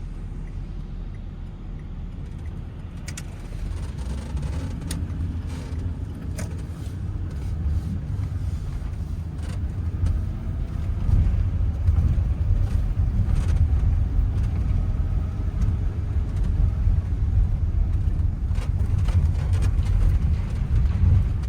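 Car driving on the road, heard from inside the cabin: steady low engine and road rumble that grows louder about halfway through as the car picks up speed.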